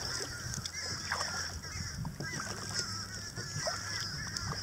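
Crows cawing over and over, many short harsh calls in quick succession, over a steady high-pitched hiss.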